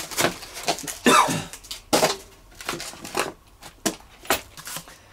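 Cardboard packaging inserts being pulled out of a box and handled: an irregular run of short scrapes, rustles and knocks, the loudest about a second in.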